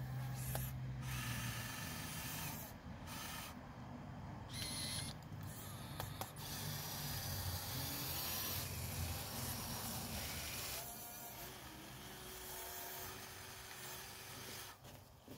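Huina 1580 RC excavator's electric motors and gearboxes whirring as the boom, arm and bucket are worked, stopping and starting as each movement is made.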